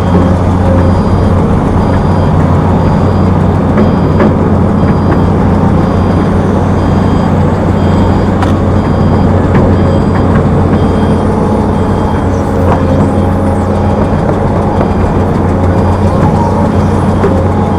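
Heavy diesel engine of earthmoving machinery running steadily under load, with a reversing alarm beeping at an even pace throughout and a few knocks.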